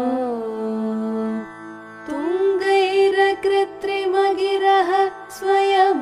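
Women's voices singing a Sanskrit hymn in Carnatic style over a steady drone. A held note ends about a second and a half in. After a short pause a new line begins on a higher note, with long held vowels and ornamented turns.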